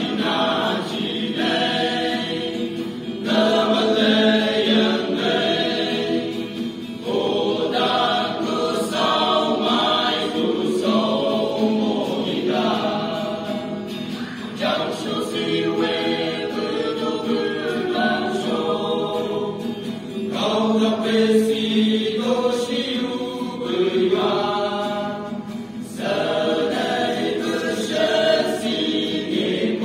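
A group of male voices singing together, in sung phrases a few seconds long with brief pauses between them.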